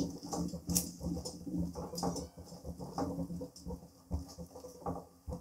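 Sweet saffron rice simmering in a kadhai in milk and sugar syrup, bubbles popping as a silicone spatula stirs and scrapes through it: a run of small, irregular pops and clicks.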